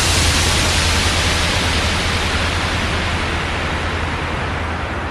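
Breakdown of a house track: a loud wash of synthesized white noise that slowly fades and dulls from the top down, over a steady deep bass drone.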